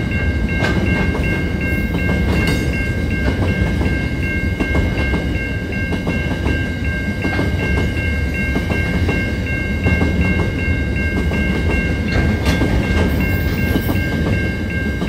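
Freight train of hopper wagons rumbling past with wheels clicking over the rails, while the level crossing's warning bell rings in a fast, steady pulse.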